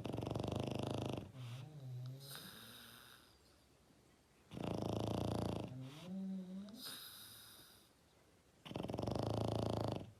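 A sleeping dog snoring: three loud rattling snores about four seconds apart, each followed by a softer, wavering breath out.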